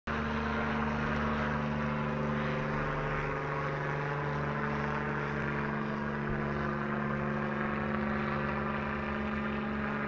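Small helicopter flying overhead, its engine and rotor making a steady, even noise.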